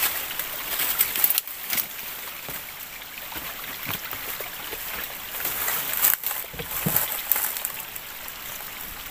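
Shallow forest stream trickling steadily, with footsteps and a few sharp knocks and scuffs as people walk along the wet, stony streambed path.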